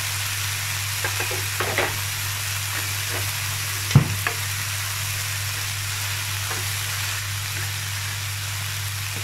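Chopped long beans sizzling in a non-stick pan with coconut oil and a splash of water, with a spatula stirring and scraping through them. A sharp knock sounds about four seconds in, over a steady low hum.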